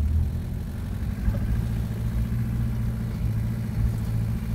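A vehicle's engine running steadily, heard as an even low hum as the vehicle moves slowly along.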